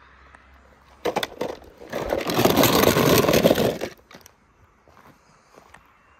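A toy car's small plastic wheels rattling loudly as it rolls fast down a plastic track. The clatter starts about a second in and stops sharply just before four seconds, followed by a few faint clicks.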